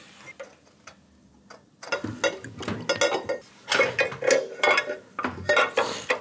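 Metal clicks and clinks of a steel floorboard bracket being handled and test-fitted on a motorcycle. A few light ticks at first, then from about two seconds in a busy run of knocks and clinks, some briefly ringing.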